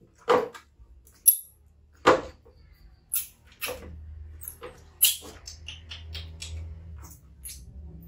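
Baby monkeys giving a string of short, sharp cries and squeaks while one is being bathed, with a low steady hum from about four seconds in.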